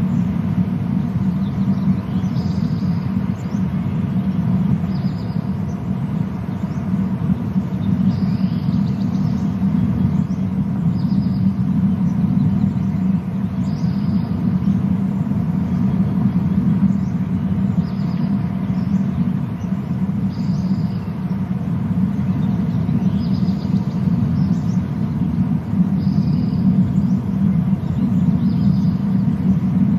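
Steady low rumble outdoors, with a small bird's short, high chirp repeated about every two seconds over it.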